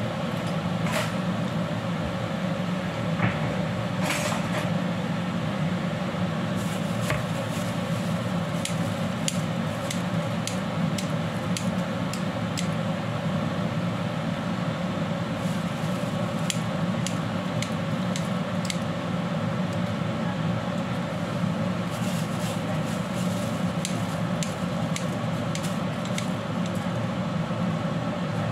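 Steady mechanical hum of kitchen appliances running. Over it come scattered light clicks and rustles as handfuls of dried noodles are dropped into a wok of water.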